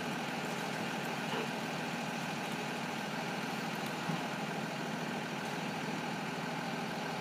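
A steady mechanical hum that does not change.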